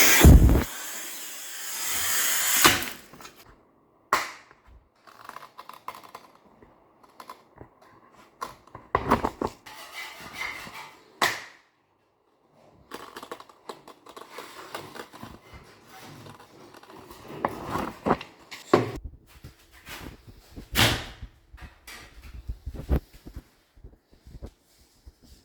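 Large-format tile being cut: a hissing cutting noise stops almost at once and a quieter one trails off after about two and a half seconds, then come scattered sharp knocks and clicks of tools and tile being handled.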